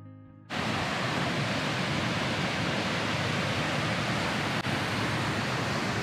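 Hopetoun Falls, a waterfall, giving a steady, even rush of falling water that cuts in sharply about half a second in as a tail of background music ends.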